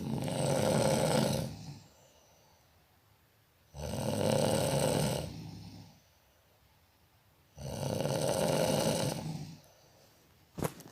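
A person snoring deeply, three long rasping snores about every four seconds with quiet pauses for breath between them.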